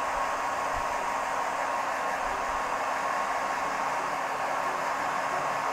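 A 2000-watt hair dryer running steadily on its hottest setting: an even rush of blown air with a constant faint whine.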